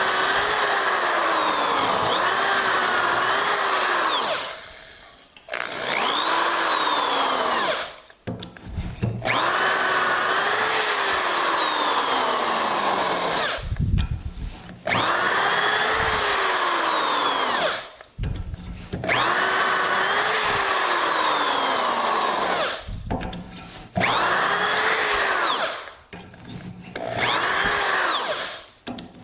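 Handheld electric drill boring dowel holes in wood through a Dowelmax doweling jig's guide bushings. It runs in about seven bursts of a few seconds each with short pauses between them, the motor's pitch dipping and recovering as the bit bites into the wood.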